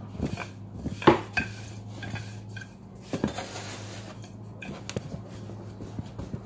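Wooden rolling pin rolling out a sheet of laminated croissant dough on a pastry board, with irregular knocks and clatter of the pin, the loudest about a second in. A steady low hum runs underneath.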